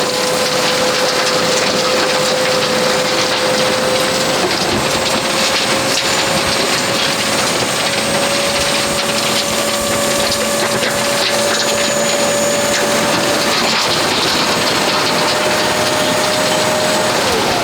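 Dump trailer's electric hydraulic pump running under load, a steady whine that slowly rises in pitch, then falls away sharply near the end as the pump stops.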